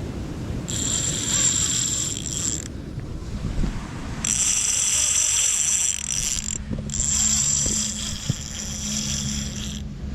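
Fishing reel whirring and ratcheting in three runs of about two to three seconds each, with short breaks between them, over a steady low rumble.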